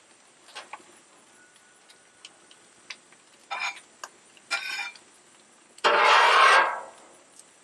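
Metal spatula scraping fried rice up off a Blackstone steel griddle top: two short scrapes about three and a half and four and a half seconds in, then a longer, louder scrape about six seconds in, with light taps and clicks between.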